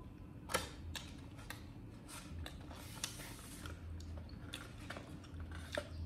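Monkeys handling and eating food: irregular sharp clicks and crackles, the loudest about half a second in and another near the end, with a short rustle about three seconds in, over a steady low hum.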